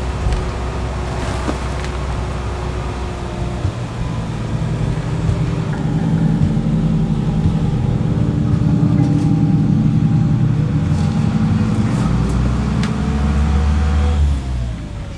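Bus engine and road noise heard from inside a moving bus, a steady low rumble. It grows louder and heavier about six seconds in, with a rising whine as the bus pulls, then falls away sharply near the end.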